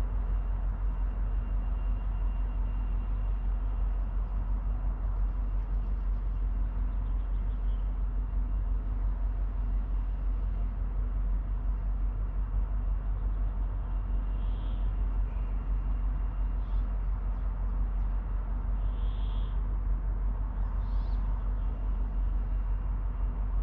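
Steady low outdoor rumble, like distant traffic. A few short, high calls break through about two-thirds of the way in and again near the end.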